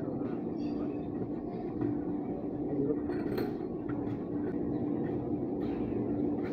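Steady mechanical drone of a running machine, with a few light knocks and clanks; the sharpest knock comes about three seconds in.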